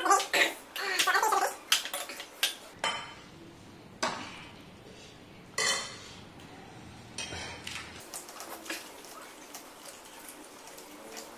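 Eating at a plate of kori rotti (crisp dried rice wafers) and chicken curry: short clinks and crunches, busiest in the first couple of seconds, then a few isolated clicks.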